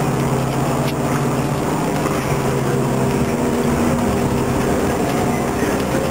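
Steady drone of a running engine or machine, with a low hum and several steady tones, with no change in pitch.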